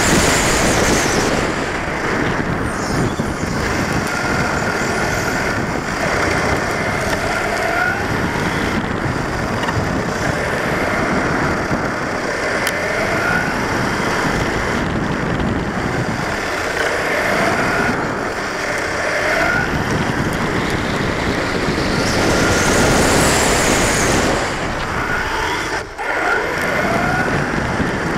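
Onboard sound of a 1/10-scale RC short course truck lapping a paved track: a constant rush of wind and tyre noise, with the electric motor's whine rising and falling again and again through the corners. Twice, at the start and again near the end, the whine climbs high and falls as the truck runs flat out down the straight.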